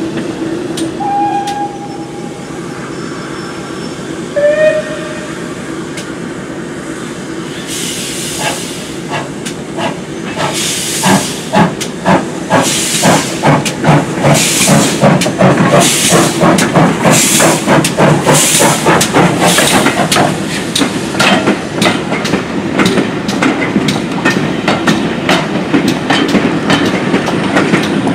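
GWR 5700 Class pannier tank steam locomotive working a train of coaches past: steam hissing, two brief whistle notes in the first few seconds, then a regular beat of exhaust chuffs building from about eight seconds in. The chuffs give way to the rattle of the coaches' wheels.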